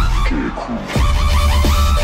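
Electronic dance music with a heavy bass line and a repeating synth figure. About a third of a second in, the bass drops out briefly under a falling sweep, then comes back in about a second in.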